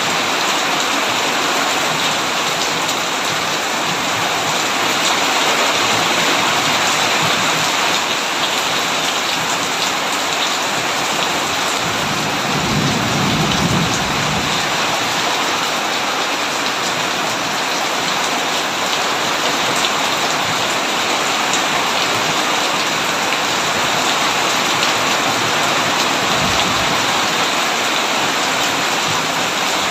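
Heavy rain pouring steadily on a tin roof, a dense even hiss. About halfway through, a brief low rumble of distant thunder rises under the rain.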